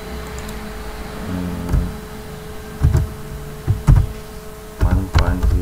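Typing on a computer keyboard: a few separate keystrokes in the second half, some close together, over a steady faint hum.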